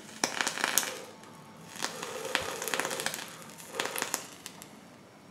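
Vape coil in a rebuildable dripping atomiser crackling and sizzling as it fires during draws. It comes in three spells: a short burst of crackles, a longer spell, then a brief one near the end, with the breathy rush of the draw and of vapour being exhaled.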